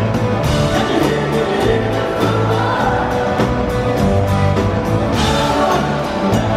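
Live rock band playing with a steady beat, bass and electric guitar, and a man singing the lead vocal.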